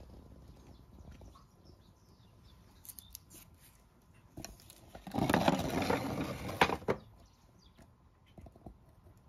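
A loud rustling scuffle lasting nearly two seconds, starting about five seconds in, from a cat going after a shrew among wooden stool legs on a stone floor. Small ticks and clicks come before and after it.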